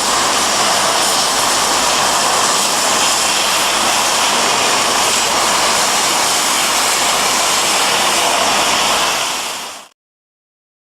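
Electric arc welding: a loud, steady hiss with no clear tone, which cuts off suddenly near the end.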